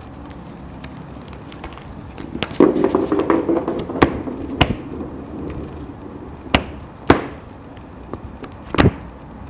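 A rattling clatter about two and a half seconds in, then five sharp knocks spaced about half a second to two seconds apart.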